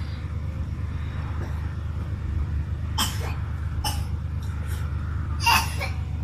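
A person coughing three times, short sharp coughs with the last the loudest, over a steady low rumble.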